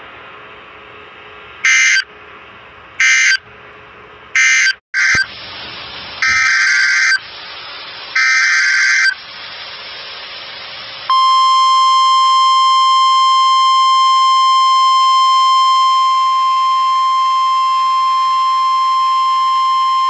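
Emergency Alert System SAME data bursts: three short, harsh end-of-message bursts, then a brief cut, then two longer header bursts of the next alert over radio hiss. From about 11 seconds in, the NOAA Weather Radio warning alarm tone (1050 Hz) sounds steadily for about nine seconds.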